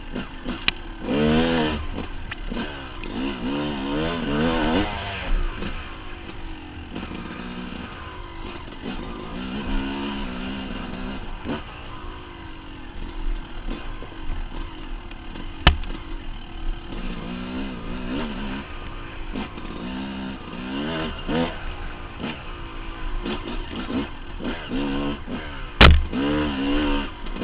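Dirt bike engine revving up and dropping back over and over as the rider works the throttle through technical trail, with a couple of sharp knocks, one past the middle and one near the end.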